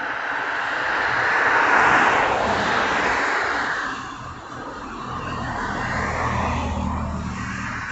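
Motor vehicles passing on the street: a rush of tyre and engine noise swells to a peak about two seconds in and fades away, then a second vehicle's low engine hum swells near the end.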